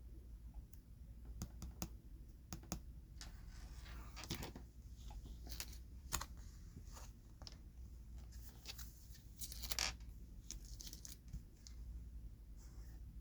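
Jumbo Pokémon cards handled close to the microphone: scattered light taps and clicks with short rustling scrapes of card, the strongest rustle about ten seconds in, over a faint low hum.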